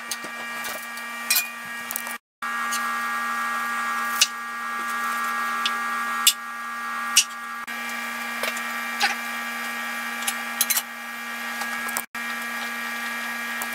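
A steady motor hum with a whining tone runs under a few sharp knocks and clinks: a knife tapping on a wooden cutting board and metal pots and lids being handled.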